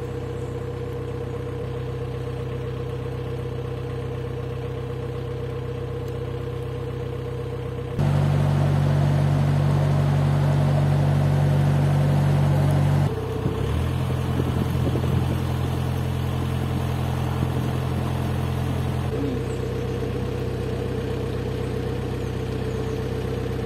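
Narrowboat's diesel engine running steadily at cruising speed with an even low drone. It gets louder for about five seconds in the middle while passing under a concrete road bridge.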